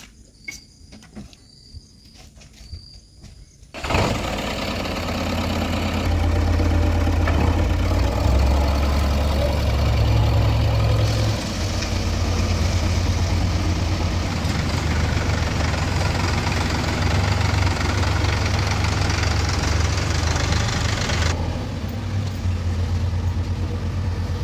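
Diesel engine of heavy machinery running close by, loud with a strong low rumble; it comes in abruptly about four seconds in after a few quiet seconds with light clicks. Its higher-pitched noise eases about three seconds before the end.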